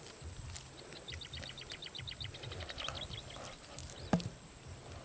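Hands digging into and breaking up clods of dry, cracked mud, with irregular low scraping and thumps and a sharp crack about four seconds in. A rapid, high chirping trill of about ten chirps a second runs from about a second in to about three seconds in.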